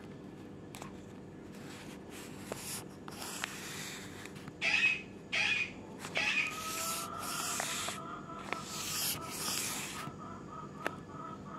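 A folded paper strip rubbed back and forth along a Brother colour laser toner cartridge's developer roller, spreading the toner evenly and pushing stuck debris aside: a series of short scraping swishes and a few light clicks. A faint, wavering whistle-like tone runs through the second half.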